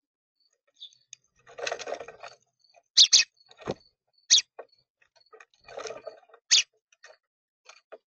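Birds at a bird feeder: a handful of sharp, loud taps of beaks pecking against the feeder, two short stretches of scratchy rustling, and faint high chirps.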